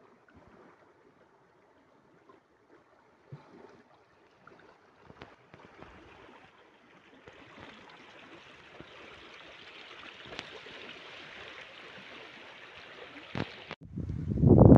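A steady rushing of flowing water, faint at first and building from about halfway, cuts off abruptly near the end. Loud wind buffets the microphone just after.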